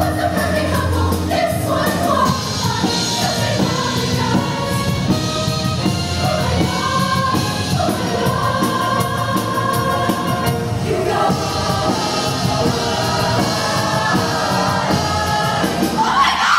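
Show choir singing an up-tempo Broadway number in full harmony over an instrumental accompaniment with a steady beat.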